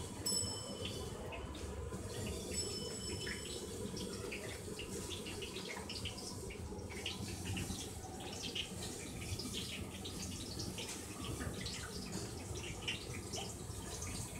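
Cooking oil pouring from a large tin into a big empty aluminium pot, a stream of liquid splashing in the pot, breaking into scattered trickles and drips in the second half, over a steady low rumble.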